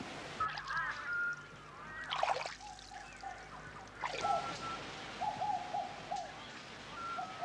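Birds calling: high chirps and whistles in the first second or so, then a run of short repeated lower notes through the second half, over a faint steady hiss. A brief rushing sound about two seconds in.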